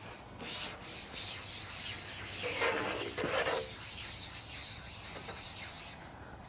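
Carbon pole of a Preston Pro Type 310 rubbing in uneven strokes as it is shipped back hand over hand while a hooked fish is played. The noise stops shortly before the end.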